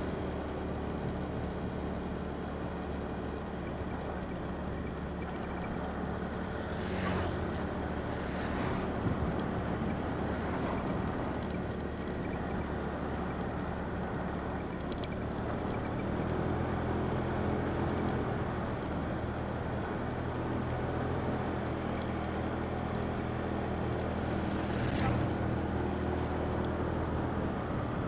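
Motorcycle engine running steadily on the move, with wind rushing over a helmet-mounted phone's microphone. The engine note shifts about halfway through, and there are a few brief knocks.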